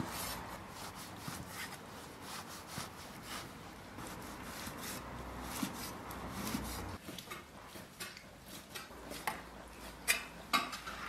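A steel cleaver slicing braised pig stomach on a wooden chopping board: a run of soft knocks as the blade meets the board, with louder, sharper chops near the end.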